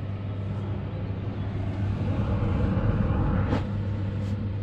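Caravan air conditioner running with its compressor on: a steady hum under the rush of the fan, growing louder about two seconds in. Two short clicks near the end.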